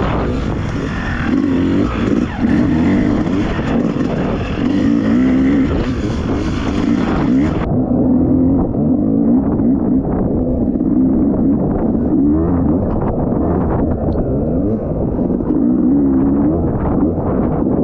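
Dirt bike engine heard from on board, rising and falling in pitch again and again as it is ridden along the trail.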